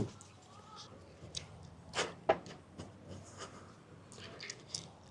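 A few short, light taps and clicks, scattered and irregular, over quiet room tone.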